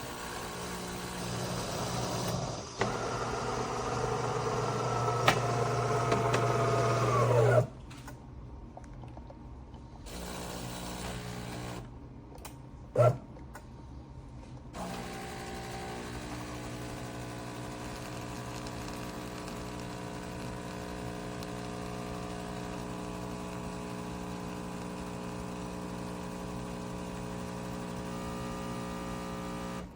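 De'Longhi Magnifica Start espresso machine at work: its built-in grinder runs for about eight seconds and stops abruptly, a sharp click follows a few seconds later, then a steady hum as it brews through the rest.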